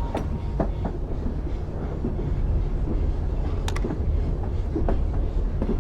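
A steady low rumble with scattered light clicks and knocks over it, like the noise of a moving vehicle heard from inside.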